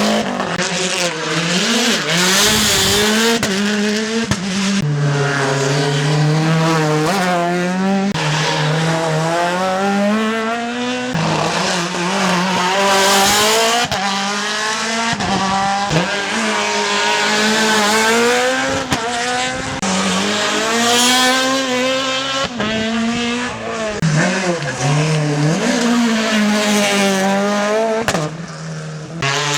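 Rally car engines revving hard, the pitch climbing through the gears and dropping suddenly at each shift or lift-off, again and again.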